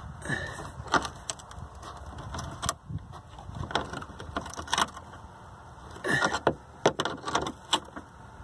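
Pliers squeezing small metal clips on a plastic dash trim piece to tighten them, giving irregular sharp clicks with handling noise, the clicks coming thickest near the end.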